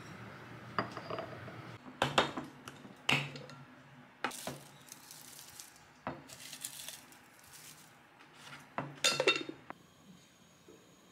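Small ceramic bowls and utensils clinking and knocking as side dishes are served out and set down, in several sharp separate knocks, the loudest about two and nine seconds in.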